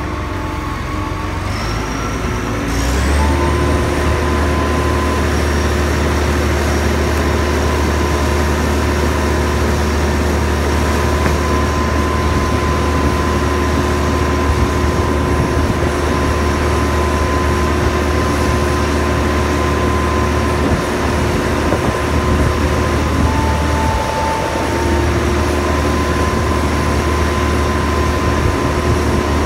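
A crane's engine running under load as it hoists its hook and cables. It revs up about three seconds in to a steady heavy hum with a steady whining tone on top, and eases off briefly around three-quarters of the way through.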